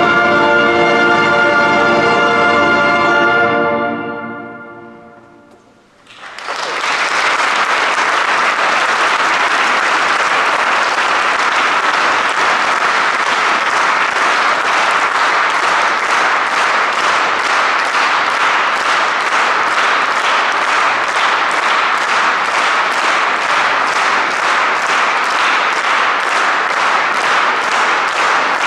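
A wind band's final held brass chord, which cuts off about four seconds in and dies away in the church's reverberation. Then an audience applauds steadily for the rest of the time.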